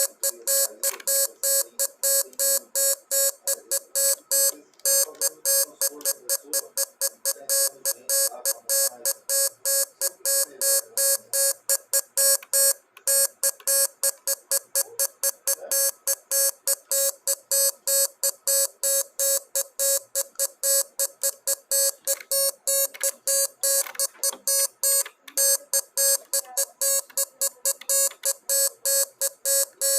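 Morse code sent as an electronic beep, spelling out 'my name is Chicky'. A single steady mid-pitched tone is keyed on and off in quick short and long pulses, several a second, without a break.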